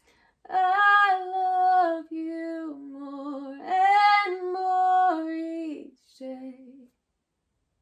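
A woman singing alone with no accompaniment, in long held notes, rising to her highest note about three and a half seconds in and ending softly a little before the close.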